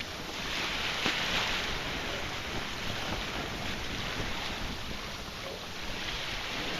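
Wind and sea washing past a small boat under way on the open ocean: a steady rushing noise that swells about a second in, with wind buffeting the microphone.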